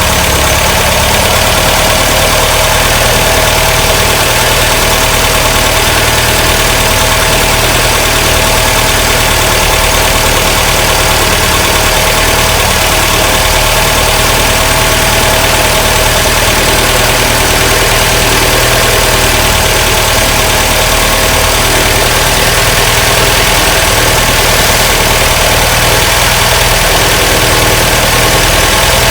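MGB's 1.8-litre B-series four-cylinder engine idling steadily and loudly. It runs lumpy, and the owner doubts it is firing on all four plugs.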